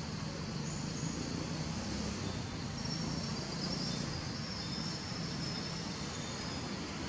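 Outdoor ambience: insects calling in high, thin, steady tones that come and go, over a steady low background noise.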